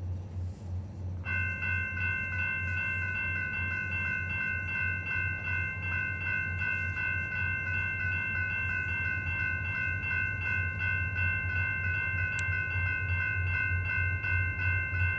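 Freight diesel locomotive's multi-note air horn sounding one long unbroken blast, starting about a second in and held steady for some fourteen seconds, over a steady low rumble.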